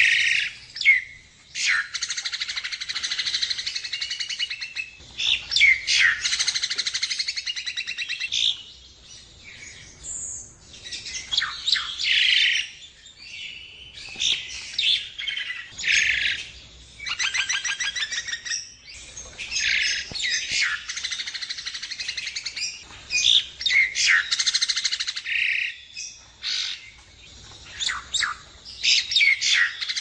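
Myna (sáo đen) calling: a long, varied stream of harsh chattering and whistled notes, broken by short pauses, with a fast rattling run of repeated notes about halfway through.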